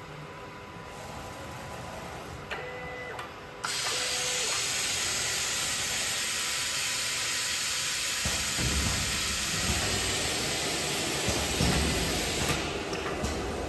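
Steady hiss of air in an automatic solar-panel stringing and layup machine. It starts suddenly a few seconds in and stops near the end, with a low rumble joining in about halfway. A couple of short electronic beeps come just before the hiss starts.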